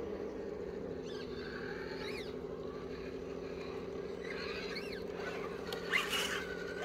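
Electric motor and geared drivetrain of an RC rock crawler whining steadily as it crawls, with a few brief higher squeals that rise and fall. A sharp knock comes about six seconds in.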